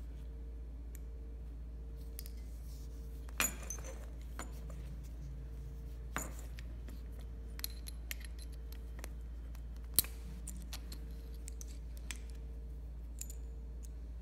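Scattered small clicks and clinks of hard objects being handled while working on a fishing-net handle, a handful in all, the sharpest about ten seconds in, over a steady low electrical hum and a faint tone pulsing at an even rate.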